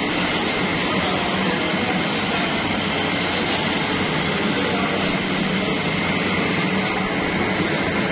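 Steady factory machinery noise with a constant high whine.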